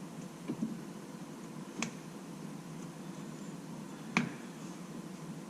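Sharp clicks as an aftermarket metal performance pedal cover is pressed and snapped onto a Tesla Model Y pedal, two loud ones about two and a half seconds apart, over a faint steady hum.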